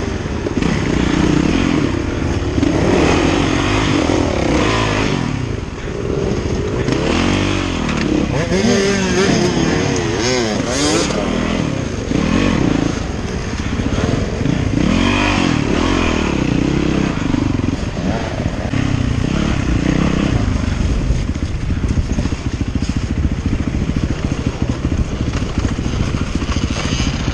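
Dirt bike engine revving up and down again and again as it is ridden over rough, rocky trail, heard close up from the rider's helmet.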